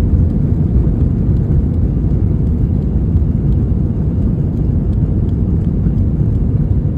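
Steady low rumble of an Airbus A321's CFM56 jet engines at takeoff power, with no rise or fall.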